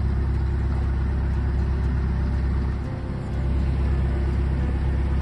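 Narrowboat's inboard diesel engine running steadily at cruising revs, a low even rumble heard from the stern, with a brief drop in level about three seconds in.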